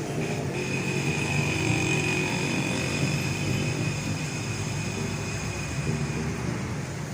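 A motor engine running steadily, with a wavering low hum and a thin high tone over it.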